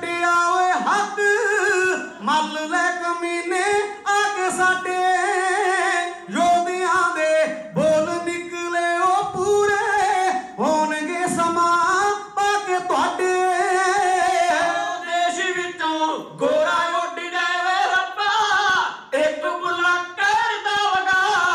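Kavishri singers: men's voices singing a Punjabi ballad, long held notes that waver and bend, each phrase broken by a short breath every second or two.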